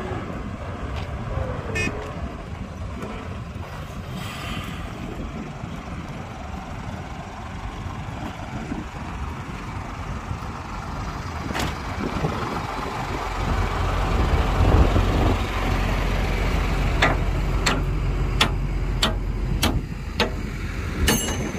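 Diesel engines of heavy earthmoving machinery running, growing louder a little past halfway, with a series of sharp metallic clanks near the end.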